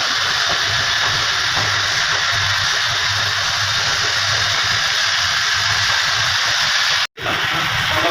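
A loud, steady hiss with a low pulsing hum underneath, cut off abruptly for a moment about seven seconds in.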